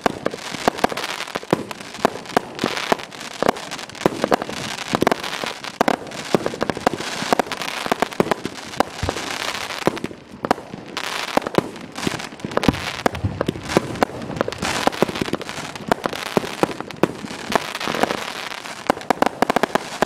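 Wezz MC127 multi-shot firework battery firing shot after shot: a dense run of launch thumps, aerial bangs and crackling, briefly letting up about ten seconds in.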